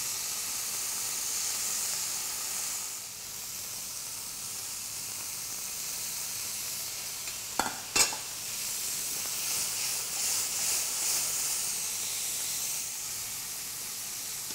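Green asparagus sizzling in olive oil and a little white chicken stock in a nonstick frying pan, a steady hiss. About halfway through, a utensil knocks twice on the pan, and the sizzle flutters for a few seconds while the spears are moved.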